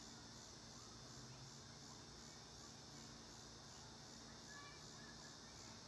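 Near silence: a faint, steady insect chorus pulsing about twice a second, with a few faint short chirps near the end.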